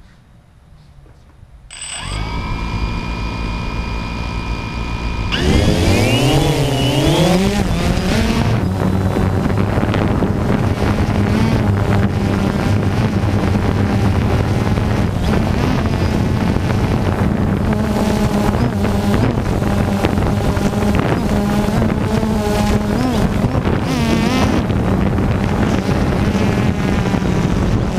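DJI Phantom 2 quadcopter's electric motors and propellers, heard right beneath the props. The motors start about two seconds in with a steady whine. A few seconds later they spin up, the pitch wavering and rising as the drone lifts off, and then they settle into a loud, steady buzzing drone in flight.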